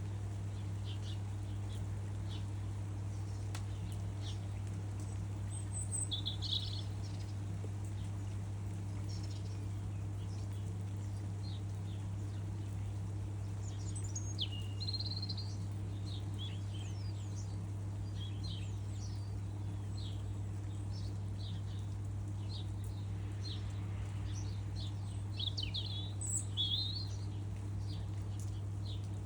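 Small birds chirping and twittering in short scattered calls, with busier bursts about six seconds in, around the middle and near the end, over a steady low hum.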